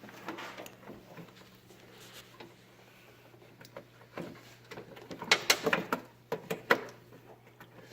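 Handling noise as parts are fitted by hand: scattered light clicks and knocks, with a quick run of sharper clicks about five to seven seconds in.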